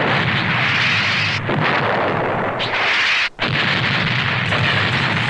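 Cartoon explosion sound effect: a long, continuous blast rumble, broken by a brief cut a little over three seconds in before it carries on.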